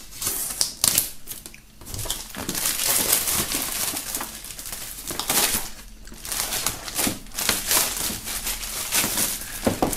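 Clear plastic shrink-wrap crinkling as it is cut with a knife and pulled off a cardboard box, in irregular crackles with two short lulls.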